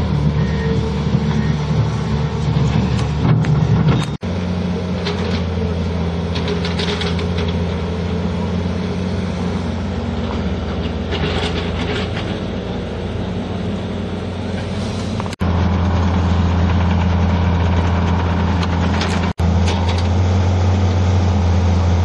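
Diesel engines of construction equipment running steadily: a wheel loader, then a compact excavator, louder in the last several seconds. Short scraping noises come and go.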